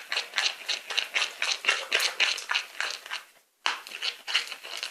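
Glue-based slime being stirred and worked in a bowl: a fast run of wet, sticky squelches and clicks, about five a second, with a short break a little over three seconds in. The mix has no baking-soda activator and is still slow to set.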